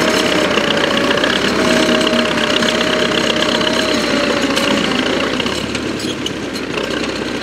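Belarus T-40 tractor's air-cooled diesel engine running steadily, with a thin whine over it that fades out about five seconds in; the engine sound eases off slightly toward the end.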